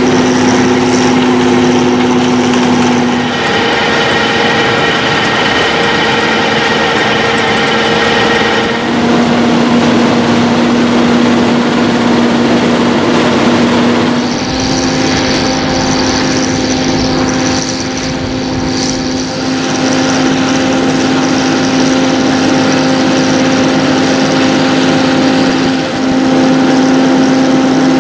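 John Deere 7930 tractor's six-cylinder diesel engine running steadily under load while pulling a power harrow through dry soil. Its steady pitch shifts slightly a few times.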